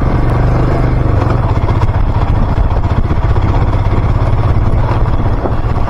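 Royal Enfield Himalayan single-cylinder motorcycle engine running at low, steady revs.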